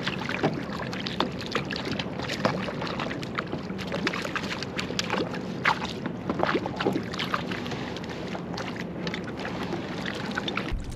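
Water lapping and sloshing around a kayak hull, with many small irregular clicks and knocks.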